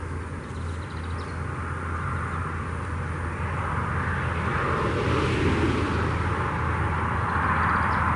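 Rumble of road traffic from a nearby highway: engine and tyre noise growing steadily louder as a vehicle approaches, over a constant low hum.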